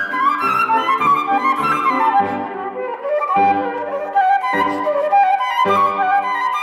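Concert flute and grand piano playing classical music. The flute plays fast rising and falling runs, then from about two seconds in a slower melody over piano chords struck roughly once a second.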